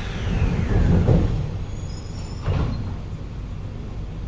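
C151A metro train's sliding passenger doors closing with a falling sweep, thudding shut about a second in, then a single sharp knock about two and a half seconds in, over the carriage's steady low rumble.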